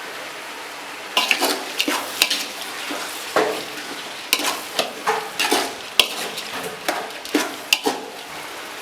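Sliced onions and dried red chillies frying in hot oil in a large pan with a steady sizzle, while a spoon stirs and scrapes against the pan in irregular strokes from about a second in.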